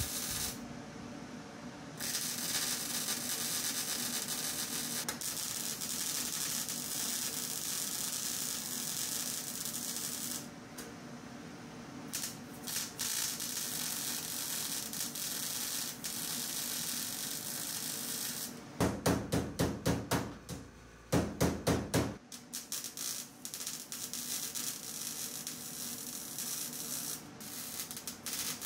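Wire-feed welder laying beads on the car's floor-pan sheet metal: a steady hiss that stops and restarts between beads. About two-thirds of the way through comes a short run of rapid, louder pulses.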